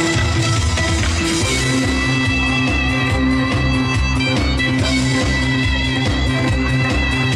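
Instrumental break of a trot song's band backing track, with a steady beat and no vocals.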